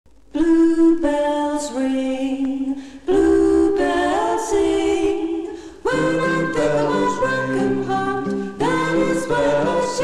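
Vocal group singing the opening of a 1959 record in close harmony, in long held chords: four phrases about three seconds apart, fuller and lower from about six seconds in.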